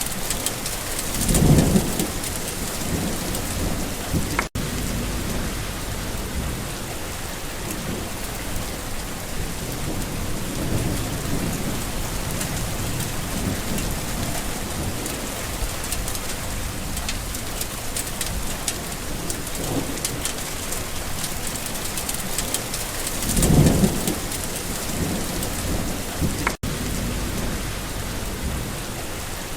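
Steady summer rain falling, with a low thunder rumble about a second and a half in and another near the end. The rain cuts out for a split second twice.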